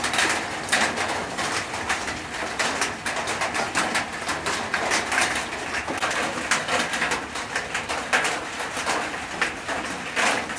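Doves cooing over a dense, continuous crackle of many small clicks.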